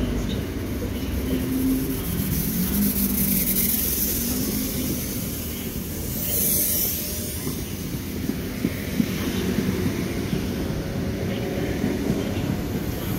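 Double-deck electric train moving along the station platform: a steady rumble of wheels on rail, with a low hum from the train that shifts in pitch during the first few seconds.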